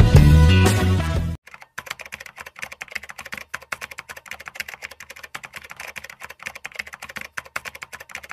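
Loud music cuts off abruptly about a second and a half in, followed by a much quieter, rapid run of keyboard typing clicks, a typing sound effect.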